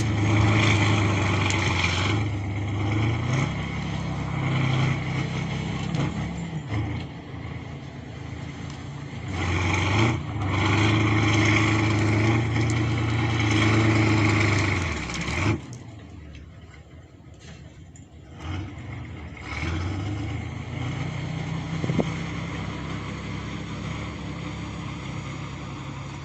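Kirovets K-701 tractor's diesel engine working hard, its pitch shifting up and down. It eases off for a few seconds past the middle, then picks up again.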